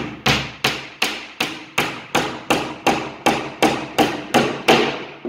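Claw hammer driving a nail through a wooden formwork panel into the batten below: a steady run of about fifteen blows, roughly three a second, each with a short ring.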